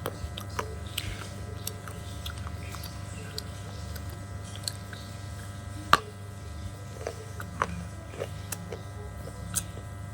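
Slate pieces being bitten and chewed close to the microphone: irregular crunches and small crackles, with one sharp crack about six seconds in. A steady low hum lies underneath.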